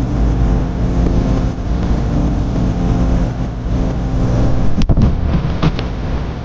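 A steady low motor-like rumble, with a sharp knock about five seconds in and a couple of lighter clicks just after.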